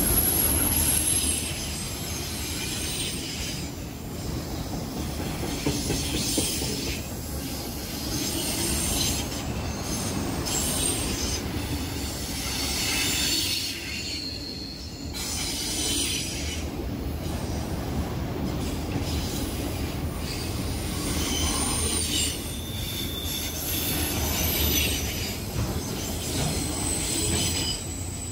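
Freight autorack cars rolling past close by, with a steady rumble of steel wheels on the rail and high-pitched wheel squeal that comes and goes.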